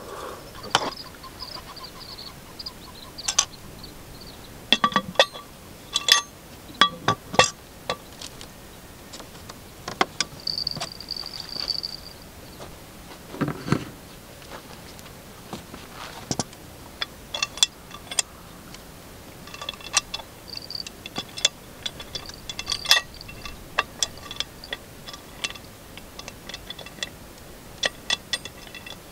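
Metal cookware and utensils clinking and clanking: scattered sharp taps, each with a brief metallic ring, bunched about five to eight seconds in and again through the second half, with one duller knock about halfway.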